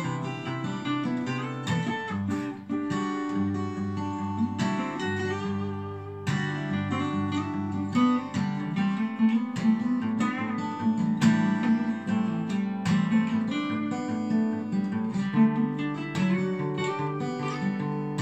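Two guitars playing a ballad together, one acoustic guitar accompanying with chords while the other picks melody lines over it.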